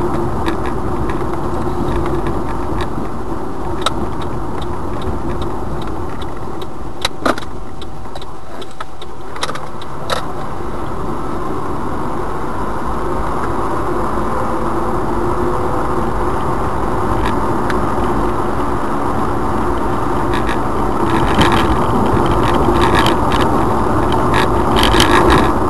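Steady road and engine noise inside a moving car, picked up by a dash cam's built-in microphone. Scattered sharp clicks and rattles come through, with more of them near the end, where the noise grows slightly louder.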